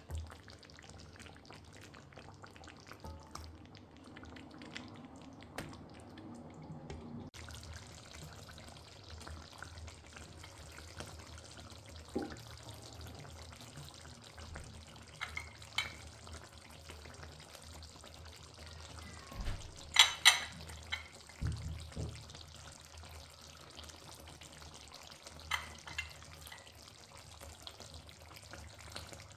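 Food frying in a pan: a steady sizzle that turns brighter about seven seconds in, with scattered light clinks of a utensil and a short burst of metal clatter about twenty seconds in.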